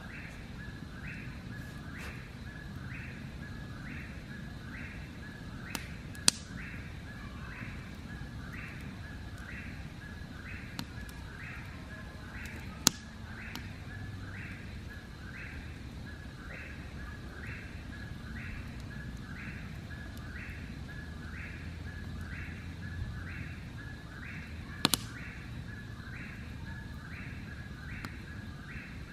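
A chirping animal calling in a steady, regular rhythm, about once a second over a continuous high tone, with a few sharp clicks or pops cutting in three times.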